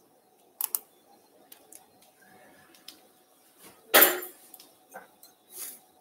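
Metal surgical instruments clinking as they are handled: a couple of light clicks, then a louder clatter about four seconds in, over a faint steady hum.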